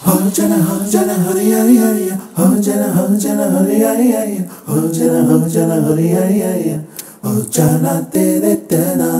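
Background music: a song with a solo voice singing a flowing melody, breaking off briefly a few times between phrases.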